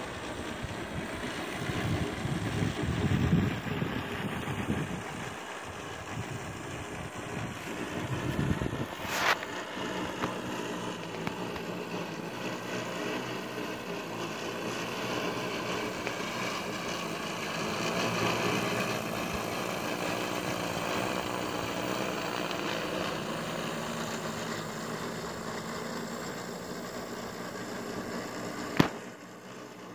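Hydrogen fuel-cell multirotor drone in flight, its propellers making a steady buzz with several tones. Low, gusty rumbles in the first few seconds, and a sharp click about nine seconds in and again near the end.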